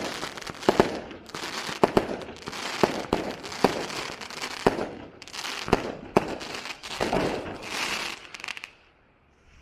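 Fireworks exploding in quick succession: sharp bangs over continuous crackling, stopping suddenly near the end.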